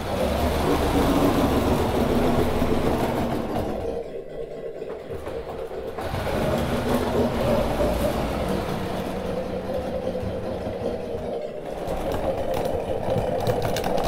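Radio-controlled giant 3D-printed LEGO bulldozer being driven: a steady motor and gear drone as its tracks run, easing off about four seconds in and again near eleven seconds before picking up.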